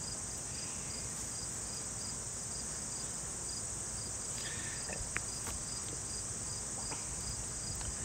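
A steady, high-pitched chorus of insects, with a few faint clicks in the second half as a lead wire is fastened to the hot terminal of an electric fence energizer.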